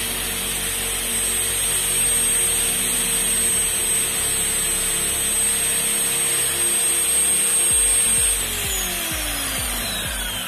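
An electric drive motor spins an angle-grinder armature in a chuck with a steady whine, while a steel rod rubs against the spinning laminated core. About eight seconds in, the motor is switched off and the whine falls in pitch as it winds down.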